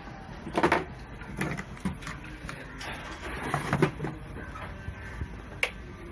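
Several short clicks and knocks of a circuit board and hand tools being handled on a workbench.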